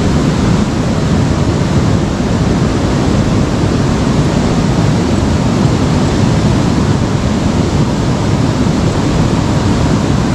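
Steady, loud rush of a fast-flowing river current.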